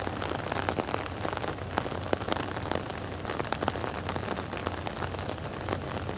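Steady rain, with many close raindrops ticking irregularly.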